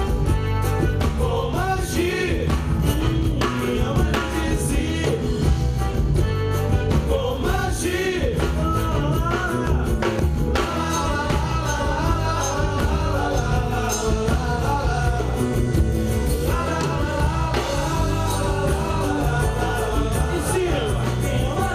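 Live samba-rock band playing: bass and drums keep a steady groove under a strummed nylon-string acoustic guitar, with a wavering melody line on top.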